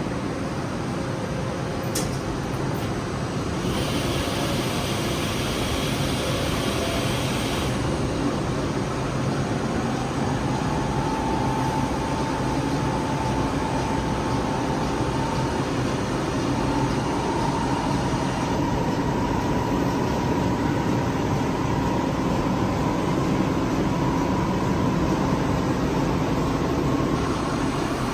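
IMTS TX400 CNC lathe running with a steady mechanical hum. A whine appears about a third of the way in and slowly rises in pitch, and a burst of hiss comes and goes early on.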